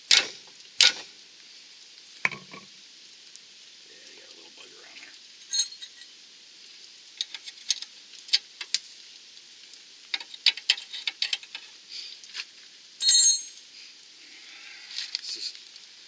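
Scattered sharp metallic clinks and taps of hand tools on the sway bar link and suspension hardware, denser in the second half with a louder clatter about 13 seconds in, over a steady quiet hiss.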